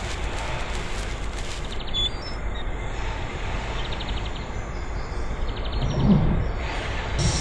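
Steady workshop background noise with a low hum, a few faint high chirps, and a dull low thump about six seconds in.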